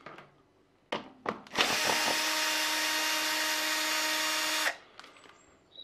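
Cordless drill-driver with an 8 mm socket running steadily for about three seconds in low gear, backing a bolt out of a scooter's variator cover. A couple of short clicks come just before it starts.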